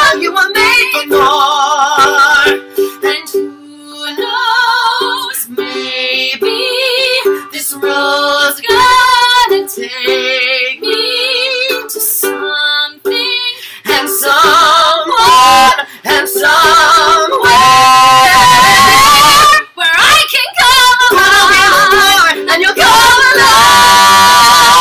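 A woman and a man singing a duet over a strummed ukulele, with wavering held notes and long sustained notes in the second half.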